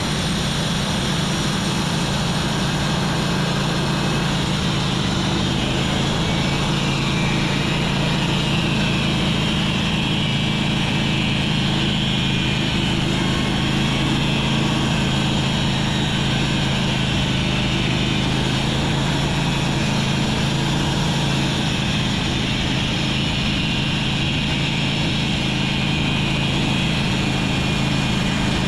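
Sawmill running steadily: a constant engine hum with the saw going through a hemlock log.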